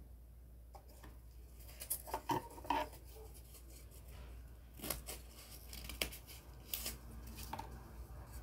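Handling noises from cardboard model-making at a table: a string of sharp clicks and scrapes, starting about a second in, bunched around two to three seconds in, then single ones every second or so.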